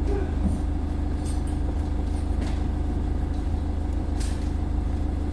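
Renault Master van's engine idling with a steady low hum, and a few faint clicks over it.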